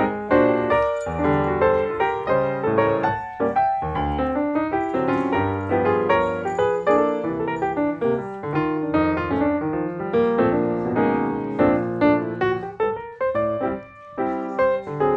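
Piano music: a steady flow of notes, some quick runs and chords.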